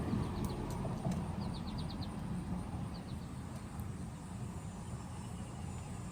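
Outdoor ambience: a steady low rumble with a small bird chirping in quick runs of short high notes, three runs in the first three seconds.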